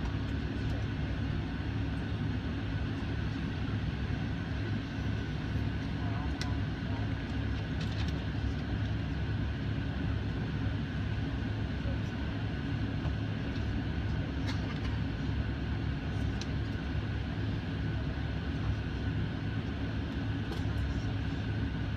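Steady cabin noise of an airliner taxiing, heard from inside the cabin: the jet engines at low power give a low, even hum with a thin steady whine above it. A few faint clicks are heard now and then.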